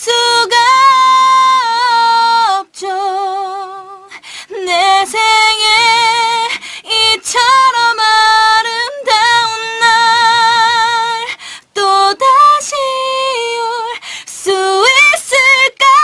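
A woman singing unaccompanied into a studio microphone: long held notes with a strong, even vibrato, in phrases broken by short pauses for breath.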